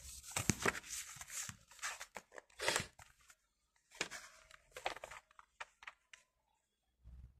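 Paper catalogue pages being handled and turned: irregular rustling and crackling, busy for the first few seconds, then a few scattered soft clicks before it dies away.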